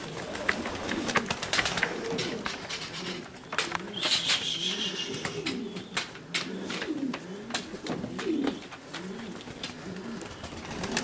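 Several Maltese pigeons cooing, their low calls rising and falling and overlapping one another, with scattered sharp clicks and taps among them.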